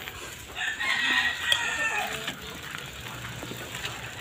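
A rooster crowing once, lasting about a second and a half.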